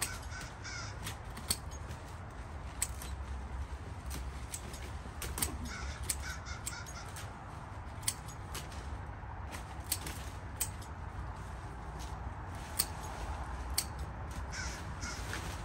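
Hand pruning shears snipping hydrangea stems: short, sharp clicks at irregular intervals, about one a second, over a steady low rumble.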